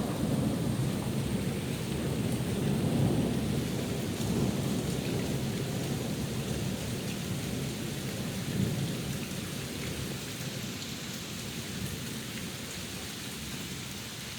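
Long roll of thunder over steady rain. The rumble swells in the first few seconds, then slowly dies away while the rain keeps falling.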